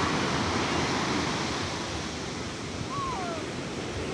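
Heavy sea surf: big waves breaking and washing in a steady rush.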